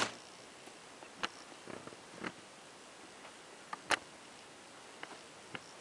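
Handling noise: a sharp click at the start, then light clicks and taps every half second to a second, as an iPhone is set down on a laptop keyboard and handled.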